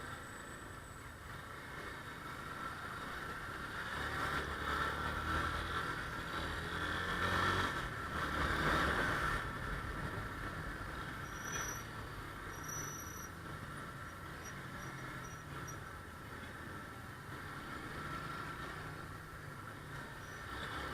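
Motorcycle engine running in city traffic with road and wind noise, swelling louder for several seconds a few seconds in. About eleven seconds in come two short high-pitched tones.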